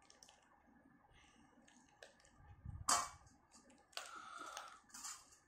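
Silicone pop-it toy being peeled off a frozen disc of ice: faint clicks and crackles, one sharp crack about three seconds in, then a short scraping rustle about a second later.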